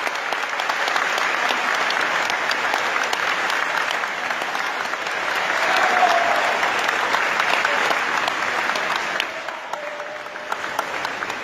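A crowd applauding, dense clapping that swells about halfway through and thins out near the end.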